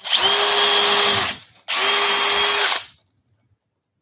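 Cordless drill with a small bit boring holes through a thin wooden panel: two runs of about a second each with a short pause between, the motor holding a steady pitch, then it stops.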